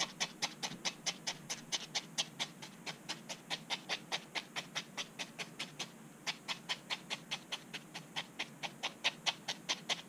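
Felting needle stabbing rapidly through a wool wrapping into a foam ball core, about five crisp pokes a second, with a short pause about six seconds in.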